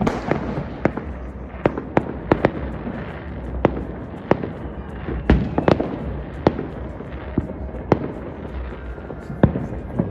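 Fireworks going off: an irregular string of sharp bangs, one or two a second, over a constant crackling din.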